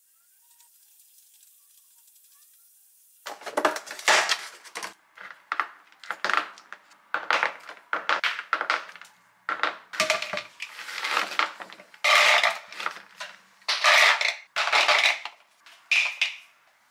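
Green grapes being pulled off their stems by hand and dropped onto a plastic cutting board and into a glass bowl: an irregular run of rustles, snaps and light clatters, starting about three seconds in after a faint stretch.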